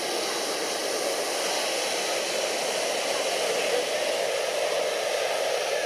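Steady rushing beach ambience of surf and wind, without a break.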